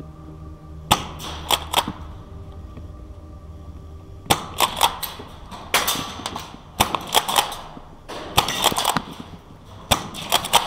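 Airsoft guns firing sharp, rapid shots: a few single shots about a second in, then short bursts of two to four shots roughly every second from about four seconds in.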